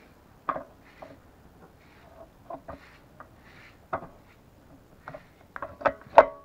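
Light clicks and knocks of small metal gearbox parts being handled and fitted by hand, with two sharper metallic clinks near the end, the second ringing briefly.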